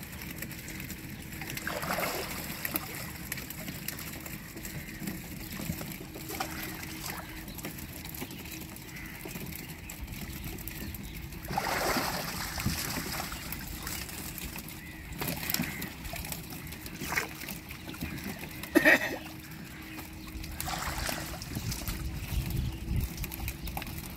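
Water sloshing and splashing as a man wades chest-deep inside a bamboo-screen fish trap, working a hand net, with a few louder splashes at irregular intervals.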